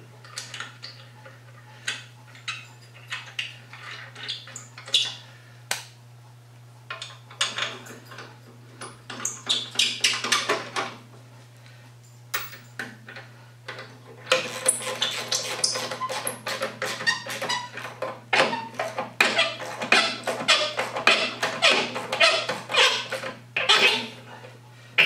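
Metal hand tools clicking, clinking and scraping against the steel frame and pulleys of an Ariens mower attachment as it is fastened on, scattered at first and a quick run of clicks through the second half. A steady low hum runs underneath.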